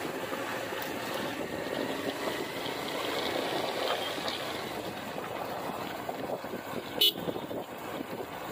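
Steady running noise of a moving vehicle heard from on board, with wind on the microphone. About seven seconds in comes one brief, sharp high sound.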